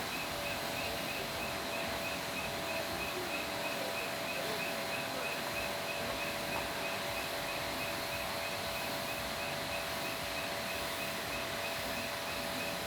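Steady outdoor background noise with a faint, even hum, and a regular high chirp repeating about three times a second, typical of an insect or small bird calling.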